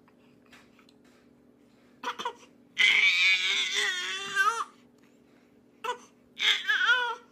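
An infant crying after its twin has taken its pacifier: a short whimper about two seconds in, then a loud wavering wail lasting nearly two seconds, and a second, shorter wail near the end.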